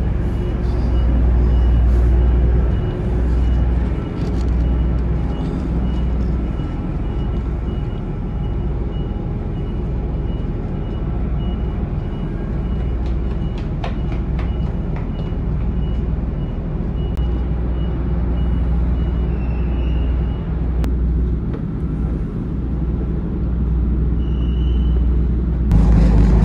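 Ferry's engine running with a steady low rumble, heard from its open deck; the rumble grows louder near the end as the ferry begins to pull away from the quay.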